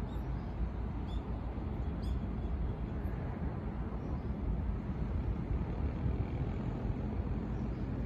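Steady low outdoor background rumble with a light hiss and no distinct events, plus a few faint high ticks in the first three seconds.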